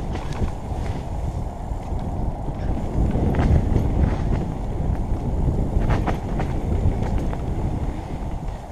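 Mountain bike running fast down a dirt forest trail, heard from a helmet camera: a steady low rumble of tyres on the ground and rushing air, with a few sharp knocks as the bike hits bumps. The noise eases off near the end.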